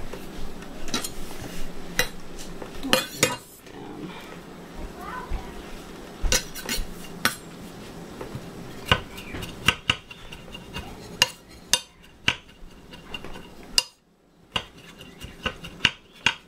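Chef's knife chopping fresh thyme on a granite cutting board: a string of sharp clicks as the blade strikes the stone. The clicks are spaced out at first and come faster and more evenly from about halfway through.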